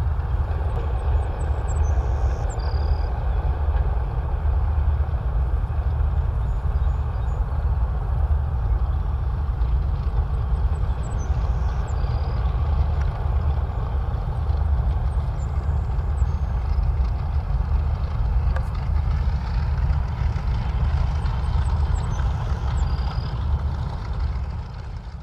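Twin Wright R-2600 radial engines of B-25 Mitchell bombers running at taxi power, a steady low rumble that fades out near the end.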